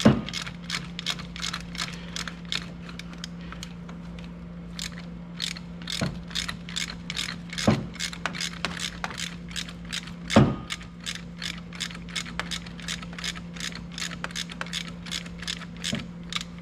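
Hand ratchet wrench clicking in quick, even strokes, about three clicks a second with a short pause a few seconds in, as a part is tightened by hand rather than with an impact gun. A few louder knocks of metal on metal stand out, over a steady low hum.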